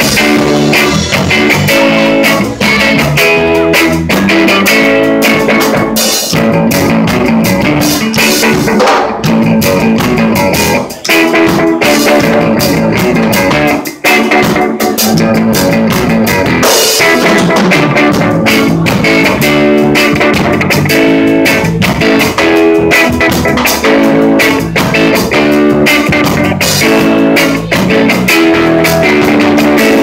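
Live band playing an instrumental passage: electric guitar over a drum kit, loud and driving, with two short breaks near the middle.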